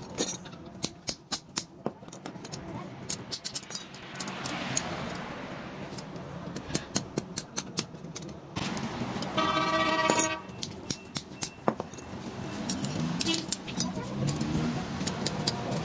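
Hand hammer striking hot steel on an anvil in quick runs of ringing blows, forging a sickle blade. A vehicle horn sounds for about a second and a half midway.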